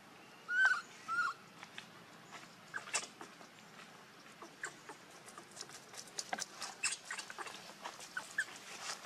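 Two short squeaky calls from a baby monkey, about half a second and a second in, then a run of quick, sharp clicks and taps that grows denser towards the end.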